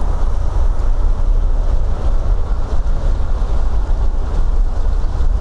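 Strong wind buffeting the microphone: a loud, steady low rumble that flutters without a break.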